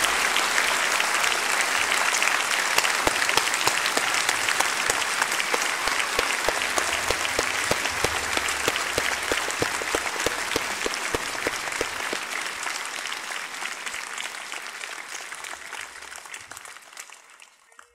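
Audience applauding, thinning and fading out over the last few seconds.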